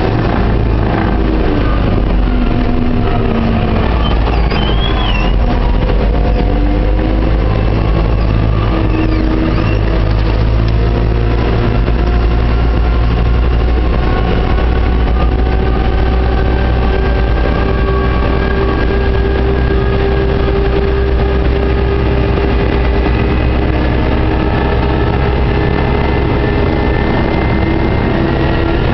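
Diesel engine and drivetrain of a JCB 532-120 telehandler driving on the road, heard loud inside the cab: a steady low drone with whining tones that rise and fall a little as the speed changes.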